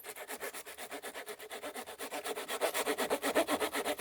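Small folding wood-saw blade of a Victorinox Farmer X Alox pocket knife sawing through a dried hardwood branch about 4 cm thick, in quick, even back-and-forth strokes that grow louder in the second half.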